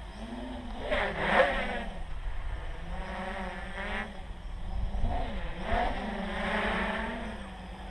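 Armattan CNC 355 quadcopter's electric motors and propellers whirring, the pitch swinging up and down with throttle changes during flips and rolls, with louder surges about a second in and again around six seconds.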